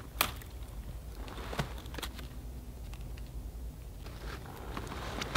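Twigs and brush being handled: a few sharp snaps and crackles, the loudest just after the start, over a low steady rumble.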